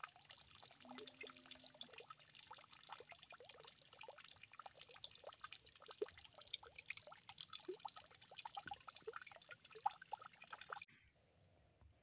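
Faint water trickling and dripping, a dense irregular patter of small drops that cuts off abruptly about eleven seconds in.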